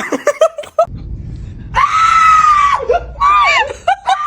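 A person screaming loudly: a few short yelps, then a long high scream held on one pitch for about a second, followed by a shorter wavering scream.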